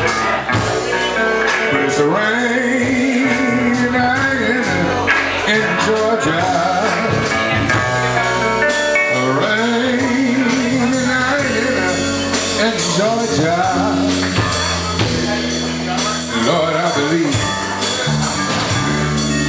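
Live band playing a slow blues-soul number on electric guitar, bass and drum kit, with steady drum hits and long lead notes held with a wide vibrato.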